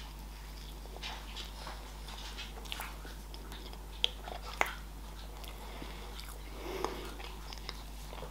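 Close-miked chewing and wet mouth sounds of a person eating soft, slightly melted cheesecake, with a few sharp clicks along the way.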